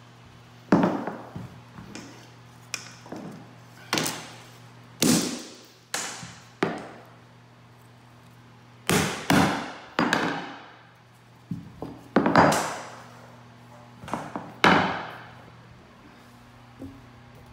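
Hammer driving the nails of a wooden carpet tack strip into a hardwood floor: about fifteen sharp strikes at uneven spacing, in small groups with short pauses between, each ringing briefly.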